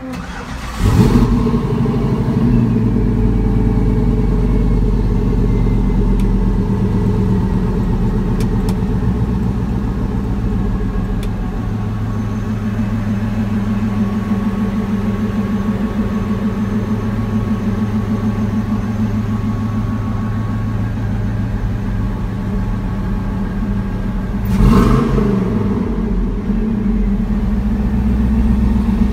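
1971 Chevrolet C10 pickup's engine idling steadily. It comes in suddenly about a second in, and gets one short blip of the throttle near the end.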